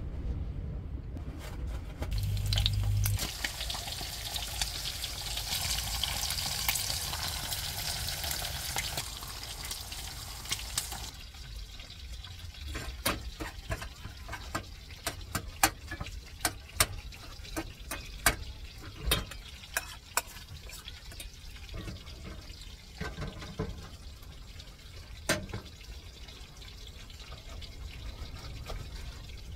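Eggs, sausages and bacon sizzling in frying pans on a stove. The sizzle is loud for roughly the first ten seconds, then softer, with a metal spoon clinking and scraping against the pans and saucepan.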